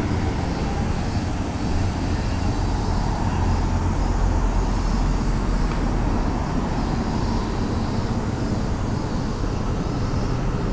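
Road traffic noise at a city intersection: cars and motorbikes passing, heard as a steady, even rumble.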